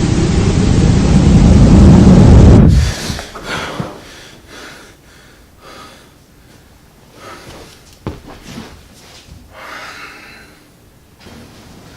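Loud static white noise, swelling louder and then cutting off suddenly a little under three seconds in. Afterwards only faint short breathy sounds and small noises in a quiet room.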